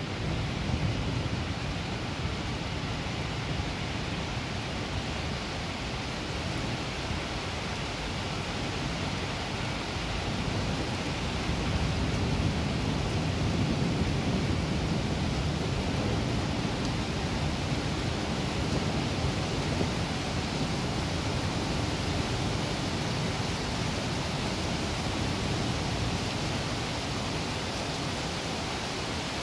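Heavy rain pouring steadily over the city, a dense continuous hiss. Around the middle a low rumble of distant thunder swells and fades beneath it.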